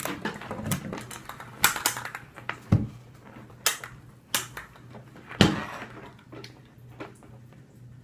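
Hair straightener and its cord being handled: a string of irregular clicks and knocks, about eight sharp ones, over a faint steady low hum.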